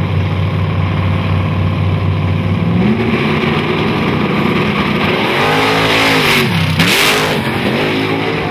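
Drag racing engines, a small pickup truck and a Camaro, held at steady revs on the starting line, then launching and accelerating hard, the engine pitch climbing and dropping back several times as they shift gears. A brief loud rush of noise comes about seven seconds in.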